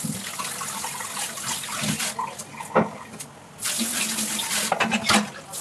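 Kitchen tap running into a sink while a wok is rinsed, with a few clunks of cookware. The water drops off briefly a little past halfway, then runs again.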